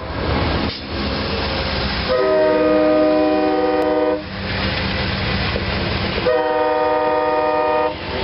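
A passenger train with a diesel locomotive passing close by, its rumble and rail noise heard all through. Its air horn sounds two long blasts of about two seconds each, the first about two seconds in and the second near the end.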